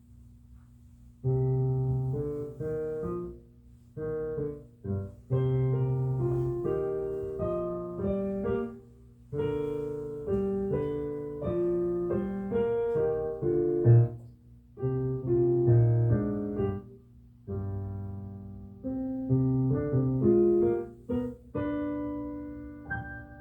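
Solo piano playing the song's introduction, chords and melody in short phrases with brief pauses, beginning about a second in.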